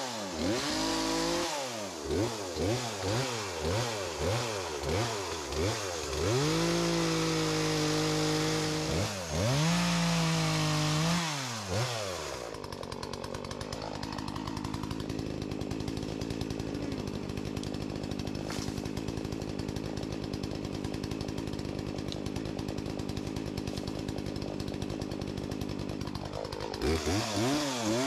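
Gas chainsaw revved in quick repeated bursts, then held at high revs twice while cutting into fallen trees. About twelve seconds in it drops to a steady idle, and it revs up again near the end.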